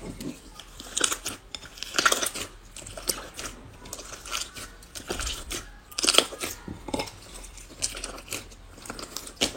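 A series of irregular crunches and crackles, loudest about two seconds in and again around six seconds.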